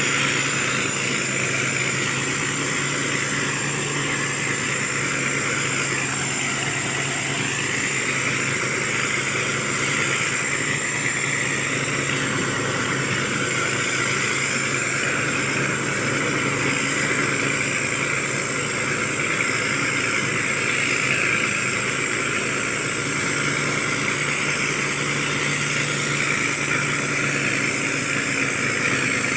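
Motor grader's diesel engine running steadily as the machine travels.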